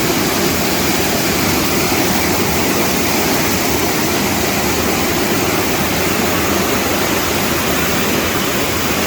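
A waterfall producing a loud, steady rush of falling water, even and unbroken.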